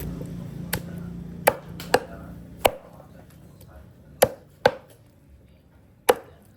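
A knife chopping through raw broiler chicken on a cutting board: seven sharp chops at uneven intervals.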